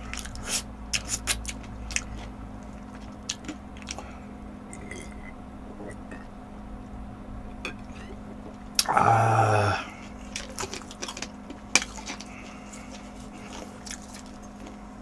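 Soft clicks of a plastic cola bottle being handled, then, right after a swig of cola, one loud throaty vocal sound about a second long.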